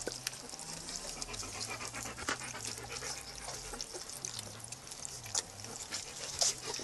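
A litter of two-week-old puppies lapping and smacking at soft food from a dish: many quick, irregular wet clicks. This is their first supplementary feeding, and they are still learning to take food.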